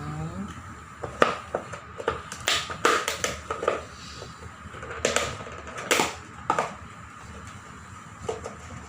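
Cooking utensils and cookware knocking and clinking at an irregular pace, about a dozen sharp clicks over several seconds, over a faint steady hum.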